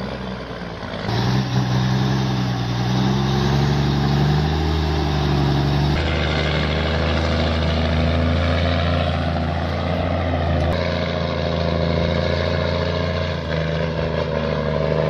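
A heavy machine's engine running steadily with a low drone that drifts slowly in pitch. The sound changes abruptly about a second in, about six seconds in and near eleven seconds.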